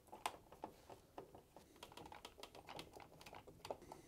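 Faint, irregular light clicks and taps of plastic and a hand screwdriver as a washing machine display PCB in its plastic housing is fitted into the control panel.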